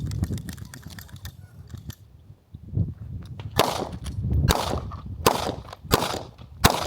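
Handgun fired five times in a steady string starting about three and a half seconds in, roughly one shot every three-quarters of a second, with fainter shots heard before it.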